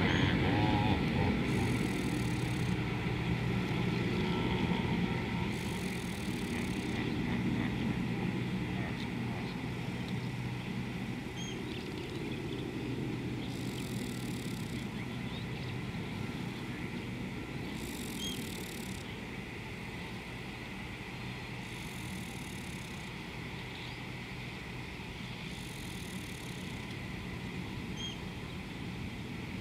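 Distant engine with a steady low hum, slowly fading away. A faint high hiss comes and goes every few seconds, with a few faint chirps.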